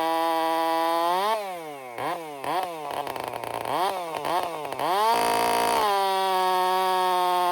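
Chainsaw fitted with a new semi-chisel chain, running at full throttle. From about a second in, its pitch drops and recovers four or five times as the engine bogs under cutting load. Around five seconds in it briefly revs higher, then settles back to a steady high whine.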